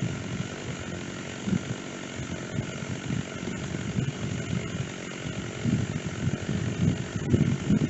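Stihl chainsaw running at low revs, its sound rising and falling, and swelling again in pulses near the end.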